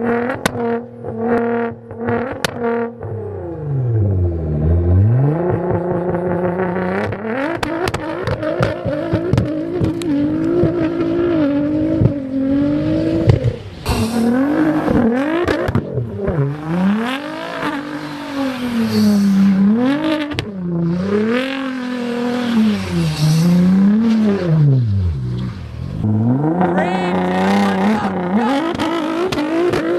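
A performance car engine held at a steady rev, then dropping and climbing again and again as it is revved hard, with short pops and crackles from the exhaust in places.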